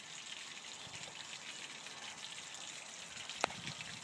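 Water from a garden hose running through a sterndrive's lower unit and splashing steadily onto the ground, with one sharp click about three and a half seconds in.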